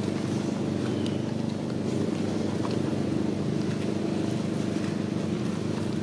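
Steady low drone of a running engine or motor, unchanging in pitch and level, with a few faint ticks of dry leaves being handled.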